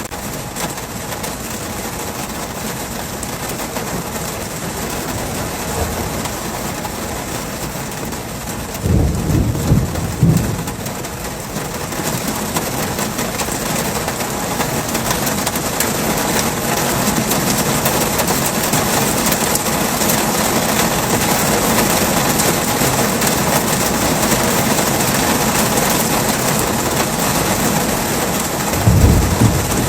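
Heavy rain pouring steadily, growing a little louder about midway, with short low rumbles of thunder about nine seconds in and again near the end.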